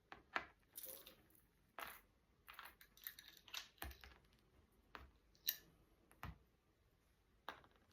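Faint light clicks and taps, a dozen or so at irregular intervals, as small objects are set down one by one on a table.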